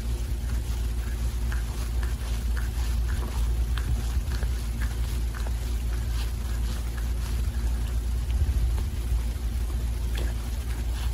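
Tabby cat grooming himself: quick, wet licks of tongue on paw and fur, about two to three a second, over a steady low rumble.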